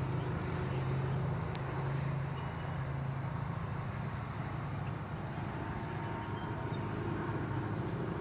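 Steady low rumble of a distant jet aircraft flying overhead, with no clear rise or fall.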